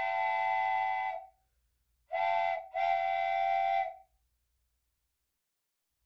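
Multi-chime train air horn sounding in separate blasts: a long blast ending about a second in, then a short blast followed by a long one, with dead silence between them. Another short blast starts right at the end.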